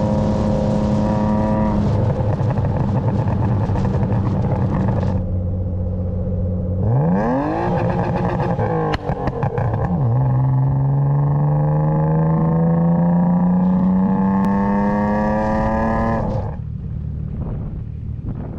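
BMW E36 323i's M52B25 straight-six running under load, dropping in pitch as the throttle eases, then a quick rev up and down with a sharp crack about nine seconds in. It then pulls steadily up through the revs for about six seconds before the throttle shuts suddenly near the end.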